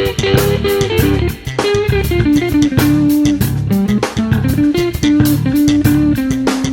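Background music: a guitar-led instrumental with bass guitar and drums, a melodic line of held notes over a steady beat.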